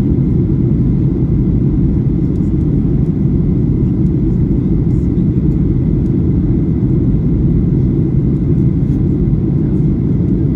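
Steady low rumble of a Boeing jet airliner's engines and airflow, heard inside the passenger cabin during the descent on final approach.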